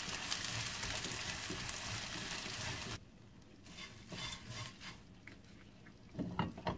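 Small dried shrimp sizzling in oil in a nonstick frying pan while a wooden spatula stirs them. The sizzle cuts off suddenly about three seconds in, leaving softer scrapes and taps of the spatula against the pan.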